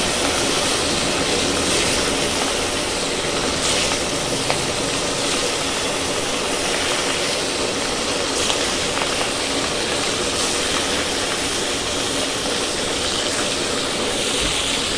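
Pieces of bhola fish frying in hot mustard oil in a kadai: a steady sizzle with scattered crackles.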